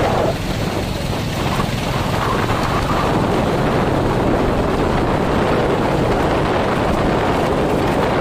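Wind buffeting the microphone while riding on a moving motorcycle, over the steady running of motorcycle engines.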